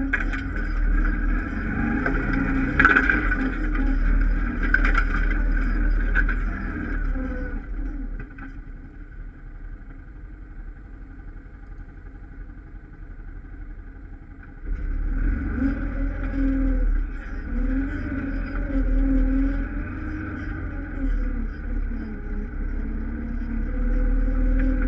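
ATV engine running over a rough forest trail, the throttle rising and falling, with a few knocks from bumps in the first seconds. It goes quieter for about six seconds in the middle, then comes back abruptly and keeps rising and falling.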